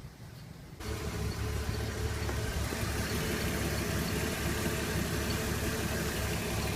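BMW E46 engine idling steadily, freshly filled with new oil after an oil change; the running sound comes in suddenly about a second in.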